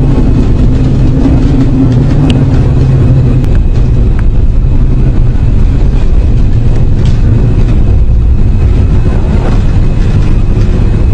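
Loud, steady low rumble with no clear source, presented as one of the mysterious 'strange sounds' heard around the world.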